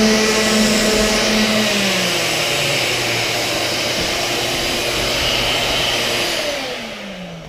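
Orbital sander with a vacuum hooked to it, running on an epoxy resin table top with 240-grit paper. One motor tone drops in pitch about two seconds in, and near the end the whine slides down and fades as the motors spin down.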